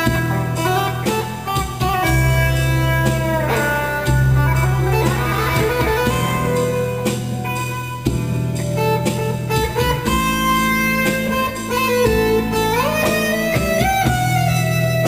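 Background music: a blues guitar track with sliding notes over a steady bass line.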